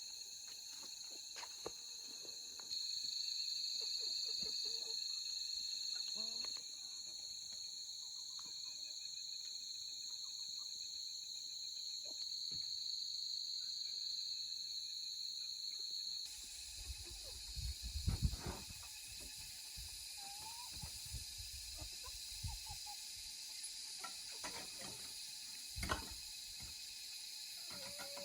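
A steady chorus of insects chirring at a constant high pitch, with scattered small clicks and knocks. A few low thumps come about two-thirds of the way through.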